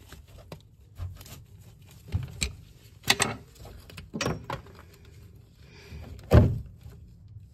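Irregular knocks, clicks and scrapes of gloved hands and a tool working at an electrical connection box inside a kitchen cupboard, with a louder thump about six seconds in.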